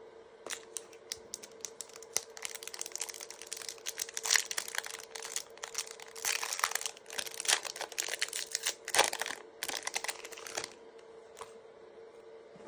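Trading cards and their foil pack wrapper being handled: a quick, irregular run of crinkles and clicks that starts about half a second in and stops about two seconds before the end, over a faint steady hum.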